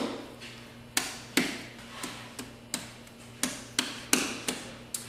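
Soft gluten-free dough being patted and slapped between the hands into a ball: a string of sharp slaps at an uneven pace, about two a second.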